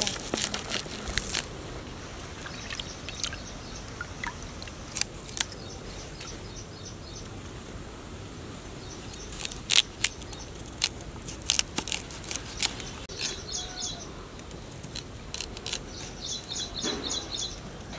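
Crisp, irregular cuts and crunches of a curved hand-held blade slicing through spring onion stalks and a raw carrot. Short, high bird chirps repeat in the background near the end.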